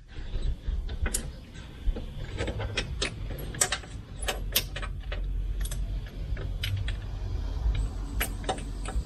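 Irregular light metallic clicks and rattles from hand work on the engine, threading and seating a spark plug and ignition coil by hand, over a low steady rumble.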